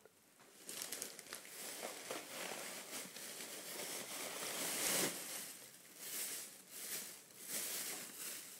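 Thin plastic shopping bag crinkling and rustling as a cat pushes its head into it to get at lettuce. It comes in irregular bursts from about a second in, loudest about five seconds in.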